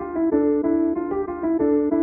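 Background music: a piano or electric-piano melody of short, evenly paced notes.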